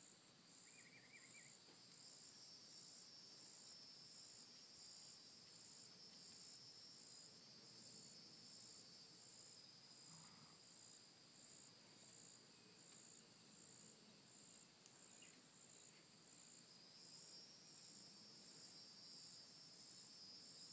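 Faint insect chorus: a high chirp pulsing evenly about one and a half times a second over a steady high hiss. A brief high trill sounds about a second in.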